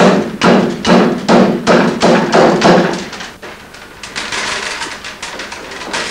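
Willow basket-weaving work: a quick run of loud thumps on the wicker, about three a second, lasting about three seconds, then a softer crackle of willow rods being worked.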